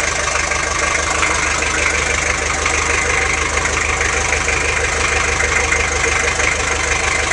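Toyota Land Cruiser BJ42's 3B four-cylinder diesel engine idling steadily through its new exhaust system.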